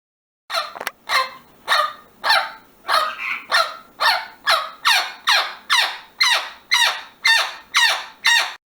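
An animal calling over and over in a steady series, about fourteen short cries a little under two a second, each falling in pitch.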